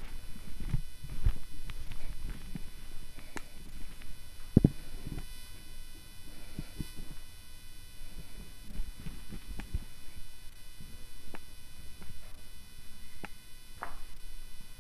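Irregular low thuds and scattered clicks of footsteps and a handheld camera being handled while walking, with one sharper knock about four and a half seconds in, over a faint steady hiss.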